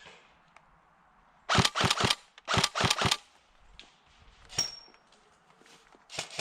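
Airsoft guns firing: two quick strings of sharp cracks, a few shots each, about a second and a half in and again around three seconds. A single sharp crack with a brief high ring follows near the two-thirds mark, and another shot near the end.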